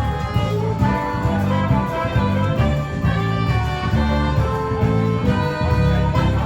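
Instrumental music with a moving bass line, with no speech over it.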